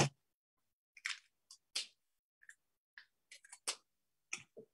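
Faint, scattered clicks and rustles of a sheet of drawing paper being handled and held up to a webcam, with one louder knock right at the start.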